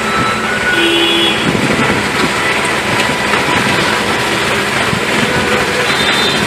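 Heavy machinery and vehicle engines running, a loud, steady noise with a few brief tonal notes about a second in.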